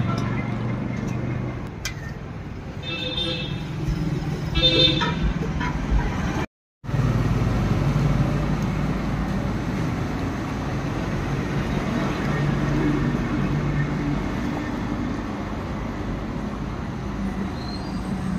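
Busy roadside traffic noise: a steady rumble of passing vehicles with a couple of short horn toots in the first third, broken by a brief gap of silence about a third of the way in.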